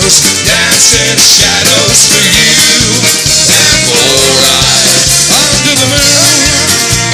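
Live folk-rock band playing: fiddle, acoustic guitar and drums keeping a steady beat.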